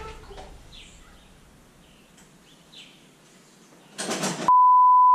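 Faint bird chirps over a quiet background, then a short burst of noise about four seconds in, cut off by a loud, steady, high electronic beep tone.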